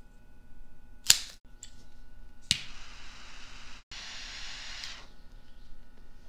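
A sharp snap about a second in, typical of a cigar cutter clipping the cap, then a lighter click and the steady hiss of a butane torch lighter's jet flame in two stretches of about a second each as the cigar is lit.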